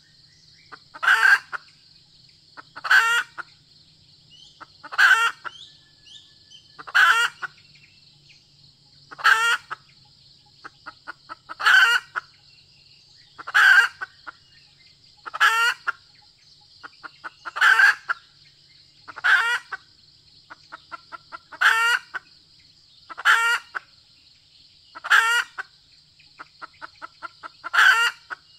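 Red junglefowl hen calling: a loud, short call about every two seconds, with runs of quick soft clucks between some of them.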